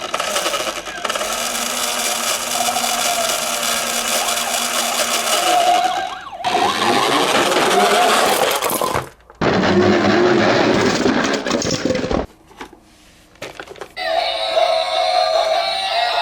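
Toy police car and ambulance siren sounds with a wavering tone, over a loud noisy clatter, in several short cut clips; near the end a music passage begins.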